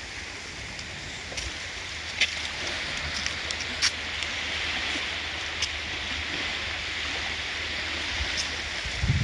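Shallow water lapping and rippling over a muddy tidal shoreline: a steady hiss, with a few sharp ticks.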